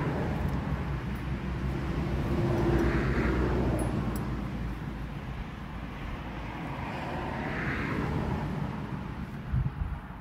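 Road traffic: a few vehicles pass one after another, each swelling and fading, over a steady low wind rumble on the microphone.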